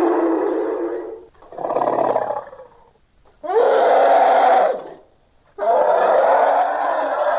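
Custom hydra monster roars layered from film creature sound effects. A roar trails off about a second in, then comes a shorter, deeper growl, then two more long roars, the last still going at the end.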